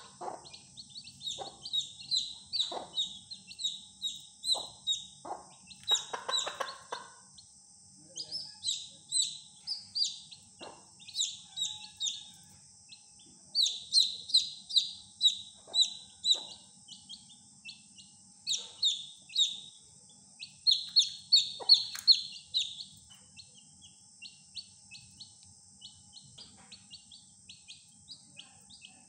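Young chicks peeping in quick runs of high, downward-sliding chirps, softer and sparser near the end. A mother hen gives a few low clucks, mostly in the first half.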